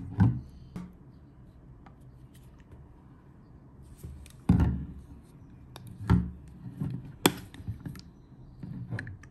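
Hands handling a large plastic pump bottle of toner on a desk: a few scattered knocks and taps of plastic against hands and desktop, and a sharp plastic click a little after seven seconds as its flip-top cap snaps open.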